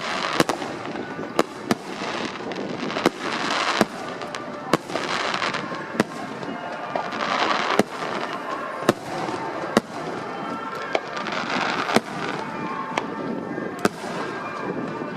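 Aerial fireworks bursting in rapid succession: sharp bangs about once a second, with swells of crackle between them.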